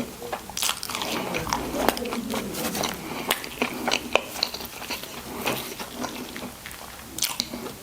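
Close-miked eating of a burger and fries: biting and chewing, with many small clicks and soft crunches coming at irregular intervals.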